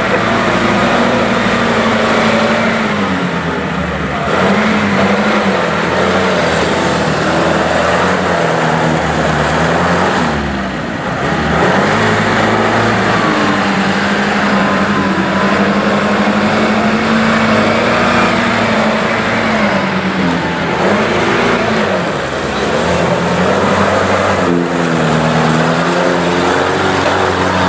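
Off-road vehicle's engine working hard over rough ground, its pitch rising and falling as the throttle is worked, with a brief drop about ten seconds in and again a little past twenty seconds.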